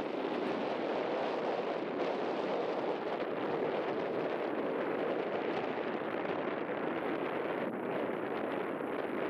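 Steady wind buffeting the microphone, an even low rushing noise with no distinct hoofbeats.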